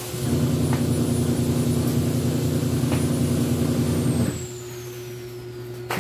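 A steady low mechanical hum, like a motor running, that starts just after the beginning and cuts off suddenly a little over four seconds in, over a faint constant background tone.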